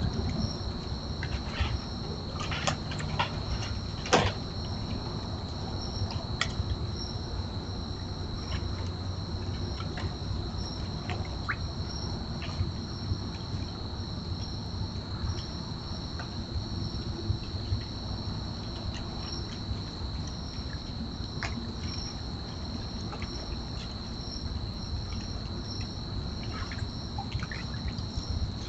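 Night insects, crickets, trilling steadily, with a regularly pulsing higher chirp above the trill. Scattered light clicks and knocks come and go, the loudest about four seconds in, from raccoons at a plastic pan of dry cat food and a plastic kiddie pool.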